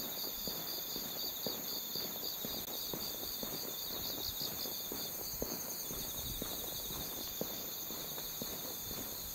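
Crickets and other night insects trilling steadily in several high, pulsing layers. Over them come soft, irregular footsteps of someone walking along a concrete station platform.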